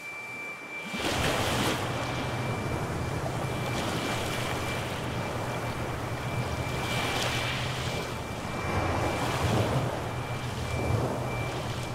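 Ocean waves washing in, starting about a second in and swelling up and easing off several times, with a thin steady high tone and a low hum held beneath them.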